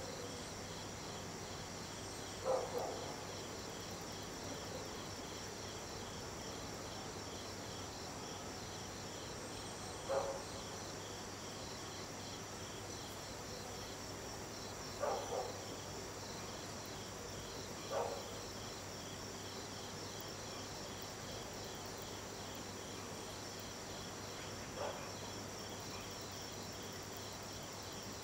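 Night-time chorus of crickets: a steady, high, finely pulsing trill. About five brief lower-pitched calls from another animal stand out at irregular intervals.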